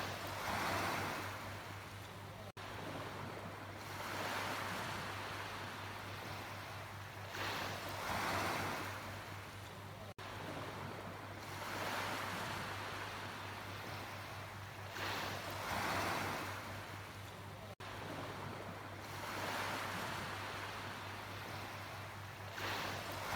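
Sea waves washing in, the rush of surf swelling and easing about every four seconds, over a steady low hum.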